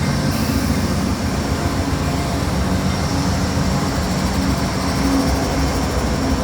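Norfolk Southern diesel-electric freight locomotives passing at close range, their engines running loud and steady over rail noise.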